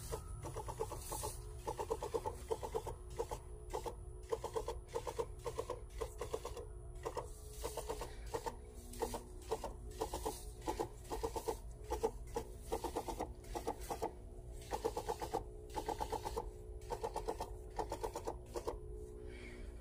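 Knapsack sprayer pump working during spraying: a steady hum with a quick, uneven rhythmic chatter on top.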